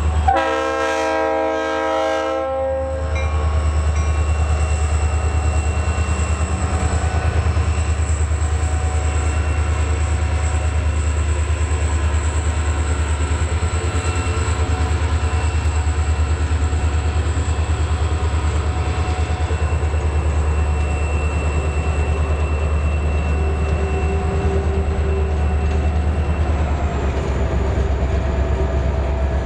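Norfolk Southern freight locomotive's air horn sounding several notes at once for about three seconds at a grade crossing. Then the coal train's hopper cars roll past with a steady low rumble.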